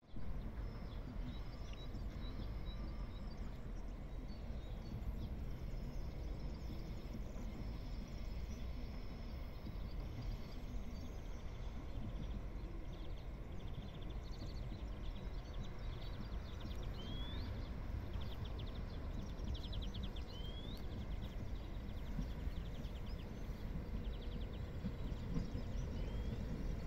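Outdoor ambience: a steady low rumble of open-air noise with small birds singing, several short chirps, quick trills and rising whistles.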